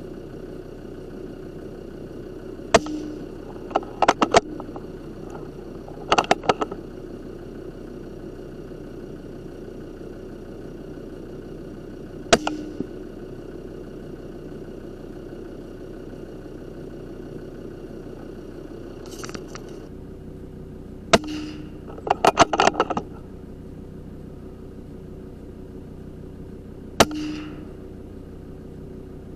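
A steady engine-like hum runs throughout, its low part shifting about two-thirds of the way through. Over it come sharp, short clicks and knocks now and then, some single and some in quick bunches of two to four.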